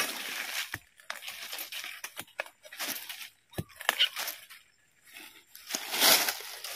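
Dry bamboo leaves and twigs crunching and rustling in irregular bursts as a metal digging bar is worked through the leaf litter, with a few sharp knocks. The loudest crunch comes near the end.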